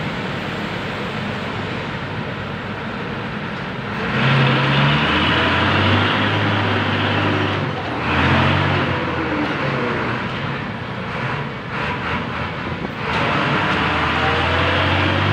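Diesel engine of a medium dump truck bogged down in soft mud, revved hard in repeated surges, about four, eight and thirteen seconds in, as the driver tries to drive it out while its rear wheels spin.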